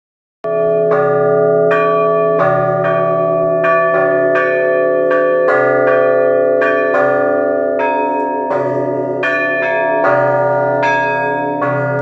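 Trezvon rung on two V. Orlov foundry church bells, the larger cast in 1897 and weighing about 390 kg with a vertical crack sawn open along its length, their clappers pulled by ropes against the hanging bells. The strokes start about half a second in and come every half to three-quarters of a second, each ringing on under the next.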